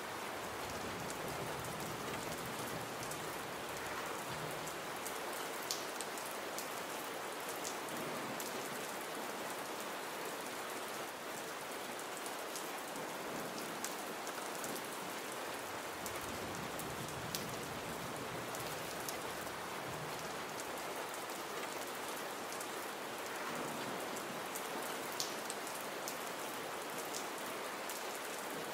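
Gentle, steady rain falling with no thunder: an even hiss of many drops, with a few sharper drop ticks standing out now and then.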